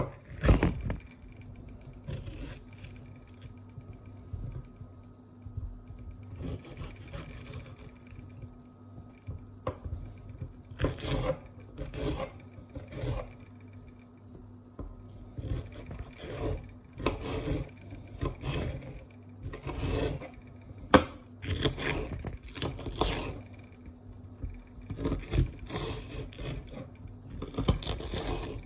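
Kitchen food-preparation noises: a sharp knock at the start, then irregular scrapes and knocks of utensils, more frequent in the second half, over a steady low hum.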